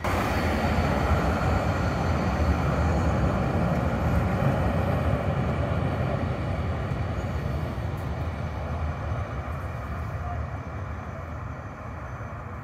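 Electric tram running along street track, a steady deep rumble that slowly fades as it pulls away.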